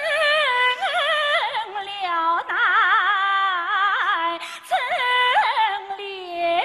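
Yue opera aria sung by a woman: a slow, drawn-out melismatic line with wide vibrato on the held notes, on the words 今生料难成连理 ('in this life we can hardly be wed').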